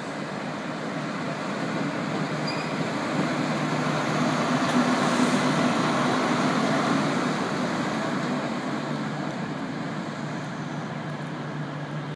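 Class 43 HST diesel power car running past close by, its engine drone and the train's rumble building to a peak about five seconds in and then fading.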